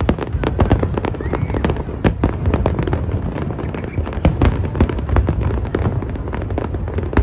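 Aerial fireworks display: a rapid, irregular string of sharp bangs and crackles from bursting shells, several a second, over a steady low rumble.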